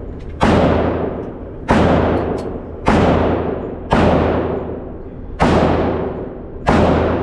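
Six gunshots, about one every second and a quarter, each ringing out in a long echo off the walls of an indoor shooting range, over a steady low ventilation hum.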